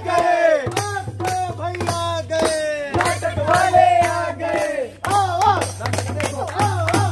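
Men singing together, with a dholak and a dafli frame drum beaten in a steady rhythm and hands clapping along. There is a brief break about five seconds in.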